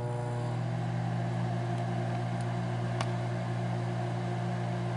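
Microwave oven running: a steady low hum with a whir over it.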